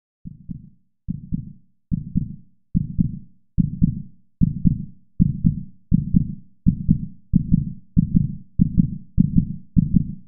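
Heartbeat sound effect: a low double thump, lub-dub, repeated steadily, fading in over the first few beats and speeding up from about one beat every 0.8 s to about two beats a second.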